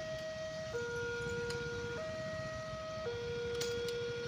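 Electronic level-crossing warning alarm sounding from loudspeakers on the crossing signal, alternating between a higher and a lower tone about once a second. It signals that a train is approaching and the barriers are down.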